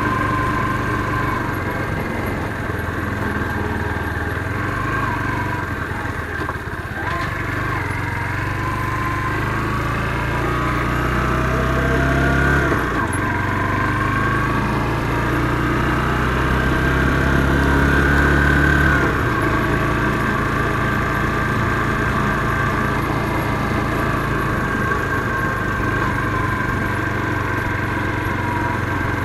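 Motorcycle engine running under way. The revs climb, drop sharply with a gear change about halfway, climb again, then fall back about two-thirds of the way through.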